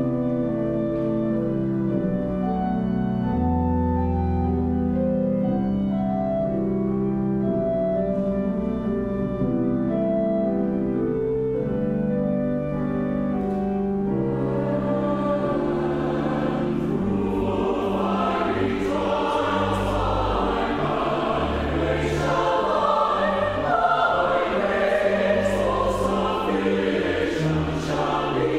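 Pipe organ playing sustained chords. About halfway through a church choir comes in singing with the organ.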